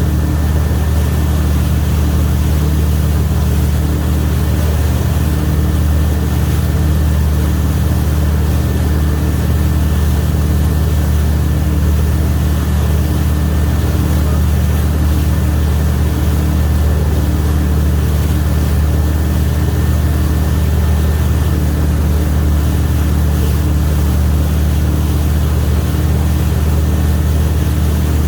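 Wake boat's engine running steadily at speed, a constant low drone with water and wind noise over it.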